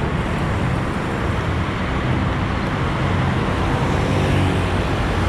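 Motor vehicle engine running steadily amid road traffic noise.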